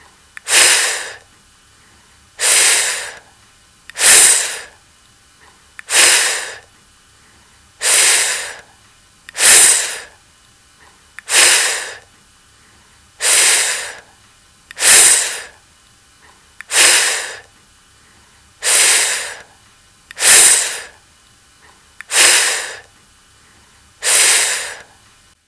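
A voice sounding the phonics /f/ sound, a breathy 'fff' hiss, fourteen times over, one every one and a half to two seconds, each starting loud and fading out.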